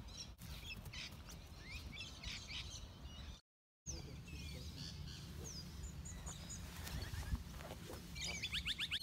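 Birds chirping and calling over a low outdoor wind rumble, with a brief dropout of all sound about a third of the way in. Near the end comes a single sharp click of a golf club striking a ball off the tee, followed by a rapid bird trill.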